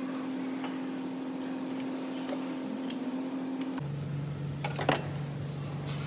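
Metal hand tools clinking a few times against engine parts, over a steady hum that drops abruptly to a lower pitch about two-thirds of the way through.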